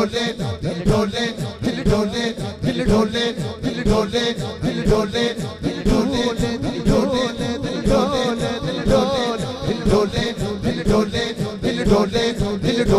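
A man singing a naat, an Islamic devotional song, into a microphone, his voice gliding and ornamenting the melody over a fast steady beat of about four strokes a second.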